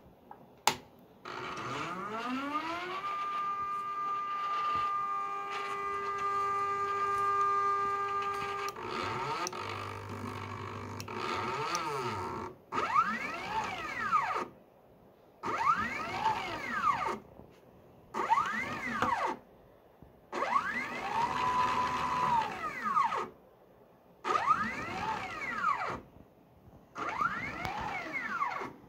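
Nema 17 stepper motor driving a 3D-printed planetary and worm gear actuator, whining with a pitch that follows its speed. About a second in it ramps up to a steady whine that holds for several seconds. Then comes a string of about six short moves, each rising and falling in pitch, with pauses between.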